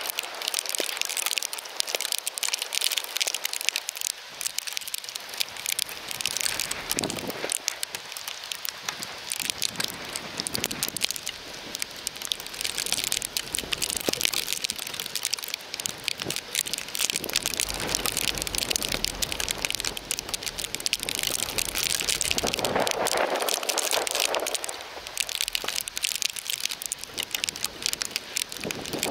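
Heavy burst of graupel and wet snow pelting down: a dense, steady patter of tiny ticks.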